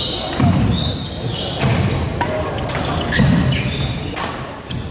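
Badminton doubles rally on a wooden sports-hall floor: rackets sharply striking the shuttlecock, shoes squeaking briefly and feet thudding as the players lunge and jump, with the echo of a large hall.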